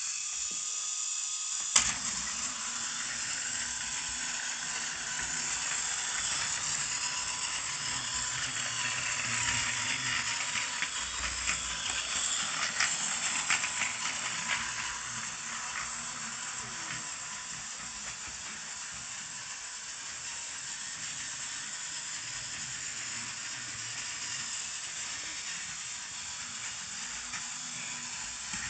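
A Plarail battery-powered toy E3 Tsubasa shinkansen's small motor and gearbox whir steadily as it runs along plastic track. The whirr starts with a sharp click about two seconds in, as the train is switched on, and scattered clicks come from the wheels on the track.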